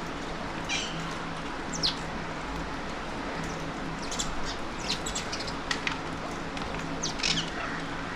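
Alexandrine parakeets calling: a series of short, sharp, high calls about a second apart, some in quick clusters, over a steady low background hum.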